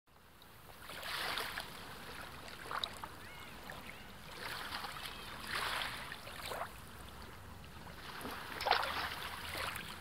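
Sea waves washing in and out, several soft surges of surf a few seconds apart.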